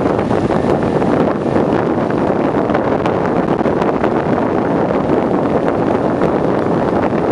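Wind blowing across the microphone, a steady loud noise with no let-up.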